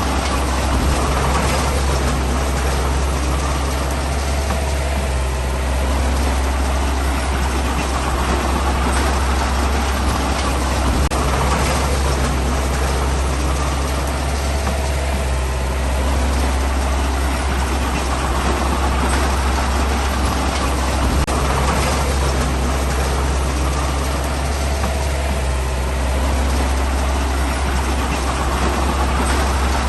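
Heavy diesel engine of earthmoving machinery running steadily with a deep rumble. A louder, noisier swell comes every four to five seconds.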